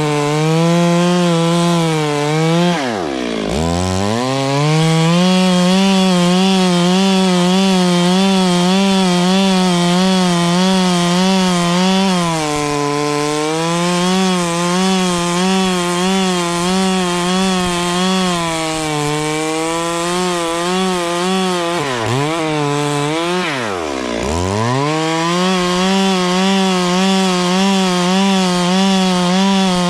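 Two-stroke chainsaw running at high revs as it cuts into a tree, its pitch wavering constantly under load. The revs drop sharply and climb back about three seconds in, and twice more in quick succession about three-quarters of the way through.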